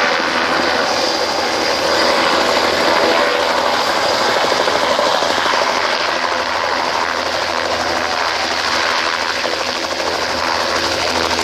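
Bell 206 JetRanger helicopter hovering low and settling onto grass: a steady turbine whine under the fast, even chop of its two-blade main rotor.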